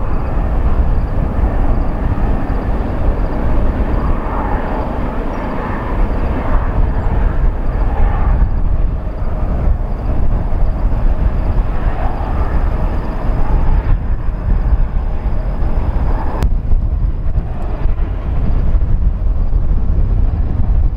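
Twin-engine widebody jet airliner taking off and climbing out: steady loud jet engine noise. About three-quarters of the way through the sound cuts sharply to a duller, lower rumble.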